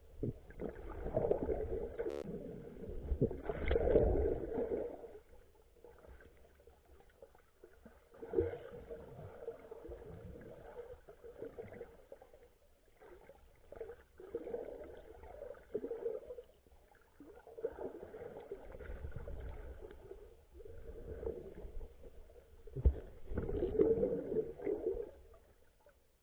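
Muffled water sloshing and gurgling, as heard underwater, swelling in surges every few seconds, with a sharp knock near the end.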